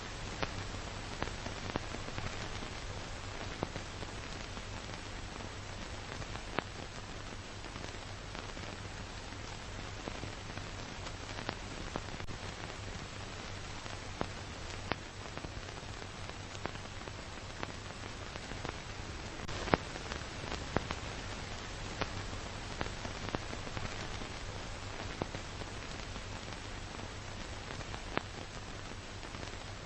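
Steady hiss with a low hum and scattered clicks and pops throughout: crackling surface noise of the kind heard on an old film soundtrack.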